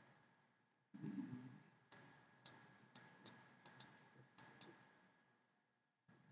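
Faint clicks of a computer mouse, about eight in an irregular run over two or three seconds, against near silence.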